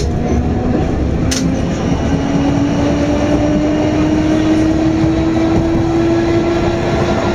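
HÉV electric suburban train heard from inside the carriage, running and picking up speed. Its motor whine rises slowly in pitch over steady rumbling running noise, with one sharp click from the track about a second and a half in.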